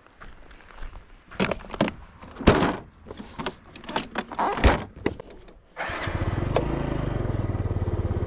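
Knocks and clatter of gear being handled in a small boat. About six seconds in, a small outboard motor starts and runs steadily with a fast, even pulse.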